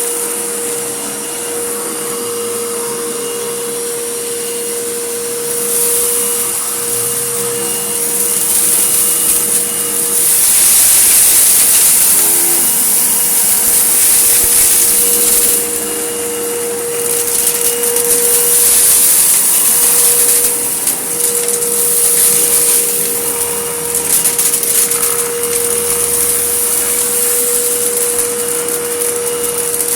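Vacuum cleaner running over a dusty, gritty mess, with a steady motor whine under a rushing hiss that swells and eases every few seconds.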